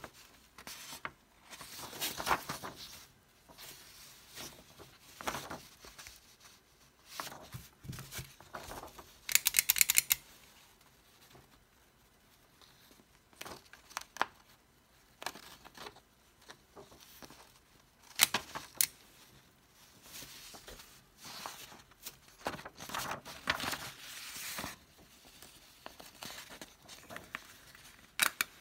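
Sheet of photo paper rustled and handled, with clicks from a blue plastic handheld corner-rounder cutter being fitted over the corner and squeezed. The loudest sounds are a quick rattle of clicks lasting under a second about nine seconds in and a sharp single click about eighteen seconds in.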